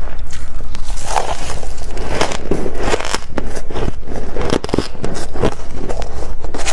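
Close-miked biting and chewing of freezer frost: a dense run of crisp, crackling crunches as mouthfuls of frost are crushed between the teeth, over a steady low hum.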